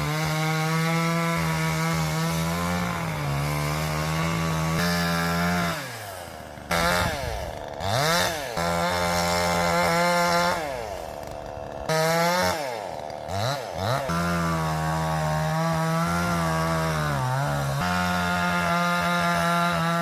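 Two-stroke chainsaw cutting oak, its engine held at a steady high pitch under load. Twice, about six seconds in and again around twelve to fourteen seconds, the revs drop and rise again in quick glides before the steady cutting note returns.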